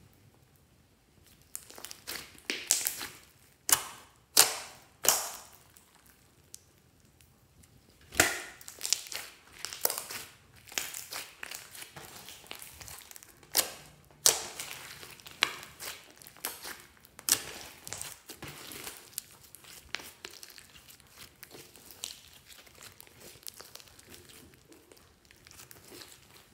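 Hands squishing, stretching and kneading a large glossy glitter slime, giving sticky squelches and sharp pops as trapped air bursts. The pops come in a loud cluster a few seconds in and again around halfway, then settle into softer crackling.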